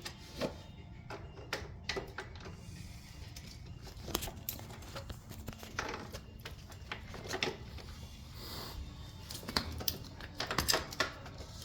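Irregular metallic clicks and clinks from tools turning a stuck, cross-threaded bicycle bottom bracket out of the frame's threads, growing busier near the end.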